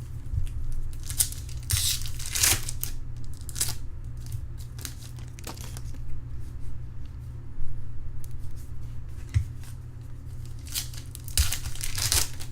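Foil wrapper of a baseball card pack being torn open and crinkled by hand, in two main bouts of tearing about two seconds in and near the end, with lighter rustling between.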